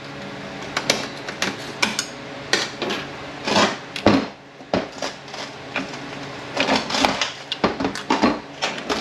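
Steel transmission parts clinking and clanking as they are handled: the 4F50N's forward clutch drum turned over and its washer and thrust bearing worked loose, in irregular knocks and rattles. A steady low hum runs underneath.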